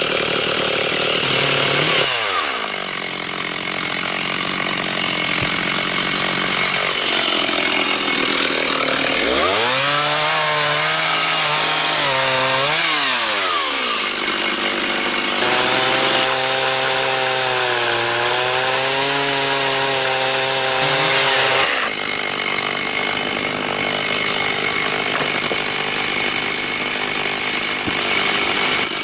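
Two-stroke chainsaw ripping a red oak log lengthwise in a mini chainsaw mill, running hard under load. Its engine note drops sharply about two seconds in, then sags and recovers several times as the chain bites into the wood.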